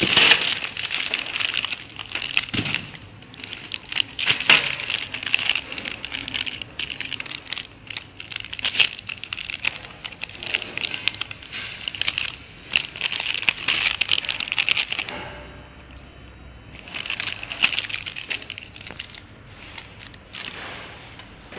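Clear plastic packing bags holding metal coaxial splitters crinkling and crackling as they are handled, in dense bursts with a short lull about three-quarters of the way through.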